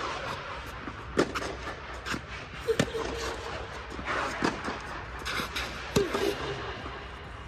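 Tennis ball being hit back and forth with rackets and bouncing on a clay court: sharp hits every second or two.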